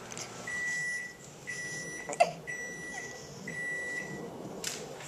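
An electronic appliance beeper sounding four times, evenly spaced about once a second, each beep a steady high tone just under a second long. A single sharp short sound cuts in between the second and third beeps and is the loudest moment.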